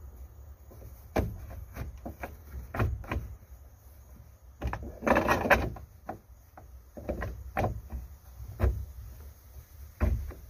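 Handling sounds of a boat steering helm and its cover being fitted by hand into the dash: a string of short knocks and clicks, with a longer rubbing scrape about five seconds in, over a low steady rumble.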